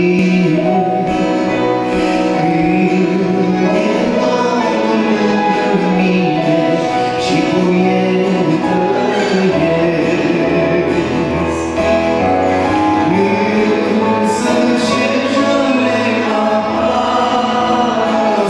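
A man singing a Romanian worship song into a microphone, accompanied by keyboard and acoustic guitar. Deeper bass notes join about halfway through.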